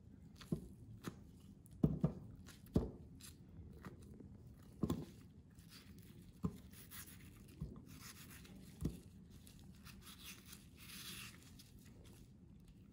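Ripe mango being cut and its chunks set down on a ceramic plate: about ten irregular sharp knocks and taps, some in quick pairs, with a short rustle near the end.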